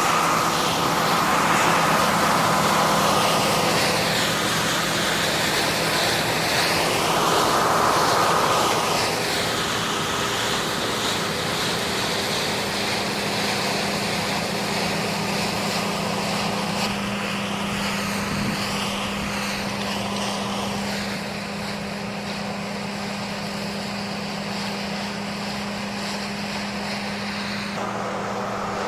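Large diesel farm machinery running steadily in a field at soybean harvest, an engine hum under broad machine and air noise that swells and shifts in the first few seconds, then settles.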